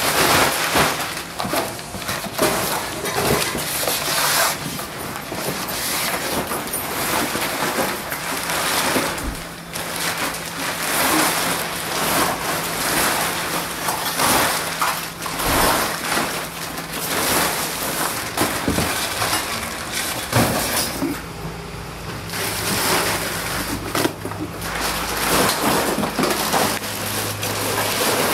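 Black plastic garbage bag rustling and crinkling as trash is stuffed into it, with a dense run of clatters, knocks and crackles from debris being handled and dropped in. A faint steady low hum runs underneath.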